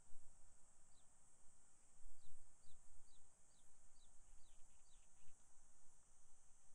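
A bird calling a run of about eight short, falling chirps, roughly two a second, from about a second in to about five seconds in. Underneath are a steady high hiss and low wind rumble on the microphone.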